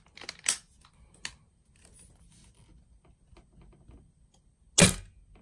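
Light clicks and rattles as a VSR-10 spring-powered, bolt-action airsoft sniper rifle is handled and loaded with a BB. About five seconds in comes one sharp, loud shot as the spring piston releases and fires a BB through the chronograph.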